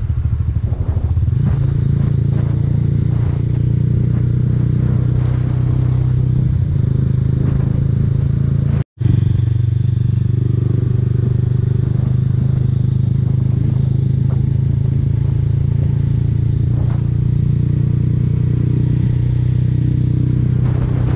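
Mahindra Mojo 300's single-cylinder engine running steadily while the motorcycle cruises, heard from the rider's camera. The sound cuts out for an instant about nine seconds in.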